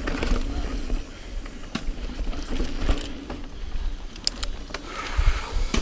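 Niner EMD 9 hardtail mountain bike ridden over bumpy dirt singletrack: tyre noise on the trail with sharp clicks and rattles from the bike over the bumps, and a deep rumble of wind on the mic.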